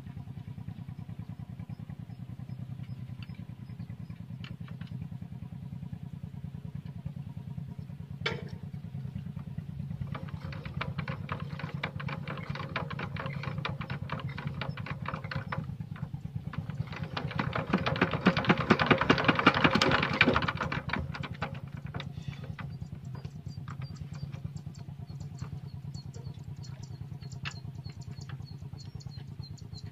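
Single-cylinder diesel engine of a two-wheel walking tractor running at idle. It is revved twice: once about ten seconds in, then harder and louder for a few seconds a little later, before settling back to idle.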